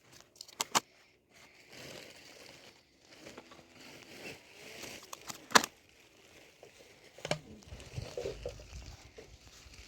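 Crinkling and rustling of plastic with scattered sharp clicks, the loudest about five and a half seconds in, as bait is handled.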